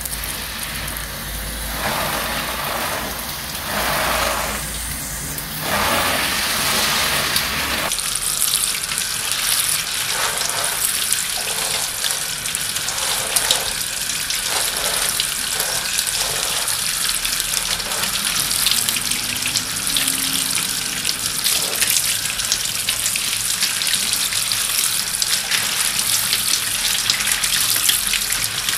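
A fine spray of watering water falling on potted succulents, a steady rain-like patter of drops hitting soil, leaves and plastic pots. A lower rumble under it drops away about a third of the way in, leaving a brighter hiss.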